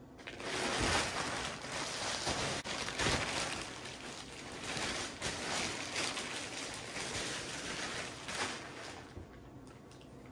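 Plastic packaging bag crinkling and crackling as a couch seat cushion is pulled out of it. It starts suddenly just after the start and stops about a second before the end.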